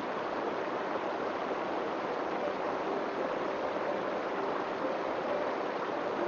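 Steady background hiss with a faint hum.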